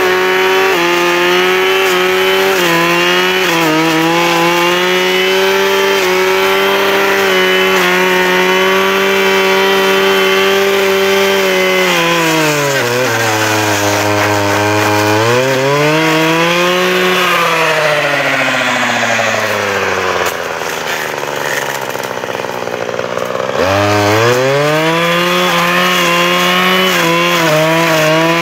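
Husqvarna 535 RJ brushcutter's two-stroke engine running at high revs as its Brushdestructor blade cuts brush. The revs dip and recover about halfway through, then drop away for a few seconds before revving back up near the end.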